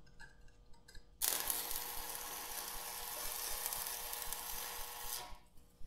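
Electric arc welding a steel rod handle onto a steel tank shell: a steady hiss that starts abruptly about a second in, runs about four seconds and cuts off, after a few faint clicks.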